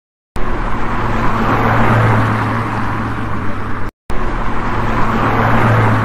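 A loud, noisy intro sound effect: a dense hiss with a steady low hum under it. It starts just after the opening, breaks off for a moment near the middle, and then repeats the same way.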